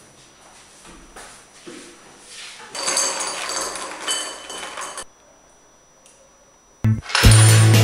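Cereal pouring from its box into a ceramic bowl for about two seconds. Near the end comes a thump, then music with a heavy beat starts.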